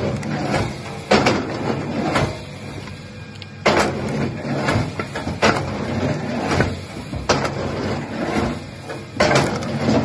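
Heavy machinery running with a steady low hum, broken by loud, irregular knocks and grinding about once a second.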